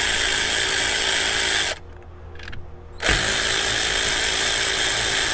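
Cordless electric ratchet running steadily, spinning a nut off at the truck battery's cable connections. It stops about two seconds in, then starts again a second later and runs on.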